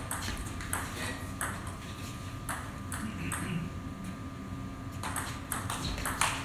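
Table tennis rally: the celluloid ball clicking sharply off the bats and the table, with a pause in the middle and then a quick run of hits in the last second and a half.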